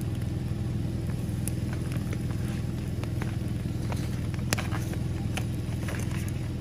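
A running engine hums steadily and low in the background. Over it come scattered short clicks and crackles, one sharper near the middle, from the campfire and a spatula working in a cast-iron skillet.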